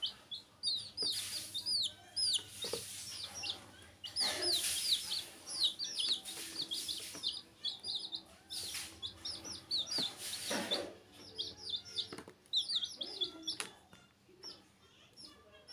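Several baby chicks peeping: many short, high-pitched chirps that fall in pitch, in quick succession throughout. A few brief rustles break in.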